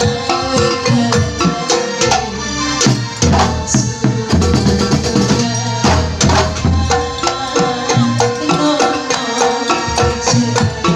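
Live kuntulan music: terbang frame drums beating a busy rhythm under a pitched melody, playing without a break.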